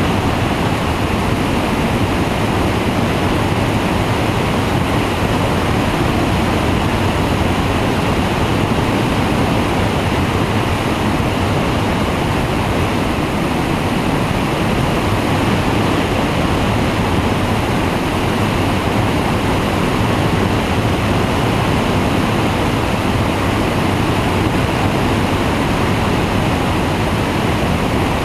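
Steady rush of airflow over a flexwing microlight trike in cruising flight, with a low, even drone from its pusher engine and propeller beneath it.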